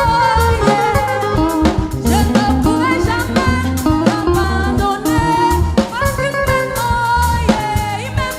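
Gospel praise song: singing over a band with a steady drum beat and bass.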